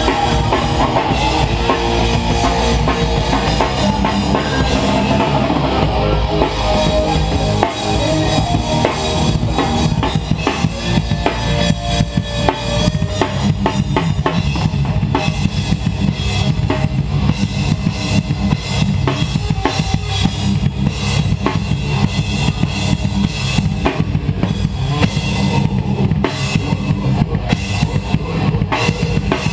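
A rock band playing loud and live, with the drum kit to the fore: bass drum, snare and cymbals over the band. About a third of the way in the drumming turns dense and fast.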